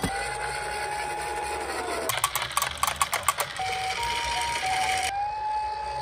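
Toy ambulance minicars sounding their electronic sirens in turn: a steady siren tone that drops away about two seconds in, a burst of rapid clicking and rattling, then a two-tone hi-lo siren alternating between two pitches. Near the end, another steady siren tone begins.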